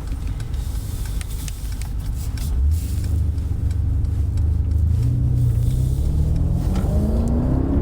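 Mercedes-Benz GLS 580's 4.0-litre twin-turbo V8 under acceleration: a low engine hum that grows louder a few seconds in, then climbs steadily in pitch as the revs rise.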